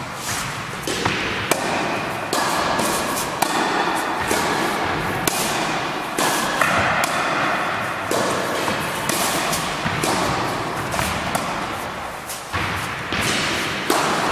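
Tennis racket strikes on tennis balls, about one a second, mixed with balls bouncing on a wooden gym floor, each hit echoing in the large hall.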